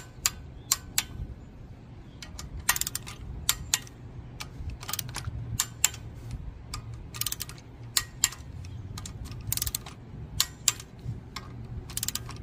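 Click-type torque wrench ratcheting and clicking off as it tightens the engine's cover bolts to about 10 foot-pounds: sharp metallic clicks, single and in small clusters, at an irregular pace.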